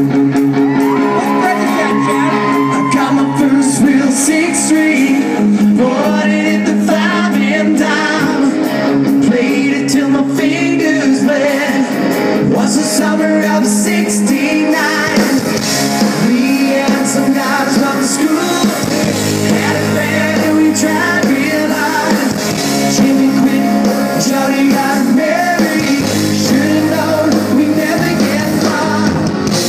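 Live rock band playing through a PA: electric guitars, drums and a singer.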